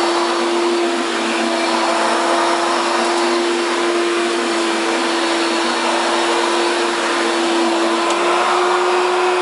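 Hoover Power Drive U6311-930 self-propelled upright vacuum with its 7.8 amp motor running steadily: a constant motor whine over the rush of air.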